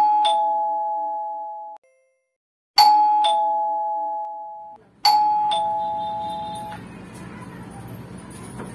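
Electronic doorbell chiming a two-note ding-dong three times, about two and a half seconds apart, each time a higher note then a lower one that rings away. A steady low background noise follows the third chime.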